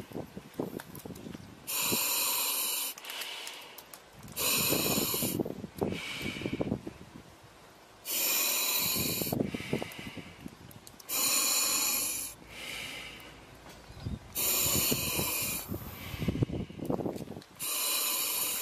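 Diver breathing through a breathing regulator: a sharp hiss of air on each inhale, about every three seconds, with bubbling exhales between.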